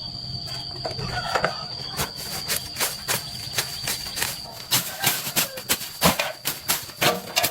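Irregular sharp clicks and knocks of tools working on metal, coming thicker and louder in the second half, over a steady high whine that stops about two-thirds of the way in.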